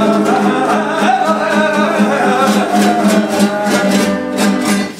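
Male flamenco singer singing fandangos over a flamenco guitar. Guitar strums come thicker from about halfway through, and the music falls away near the end.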